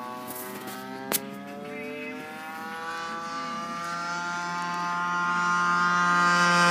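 36cc gas engine of a large RC model warbird with an 18x10 propeller, droning steadily on a low pass. Its pitch edges up and it grows steadily louder as the plane approaches. There is a single sharp click about a second in.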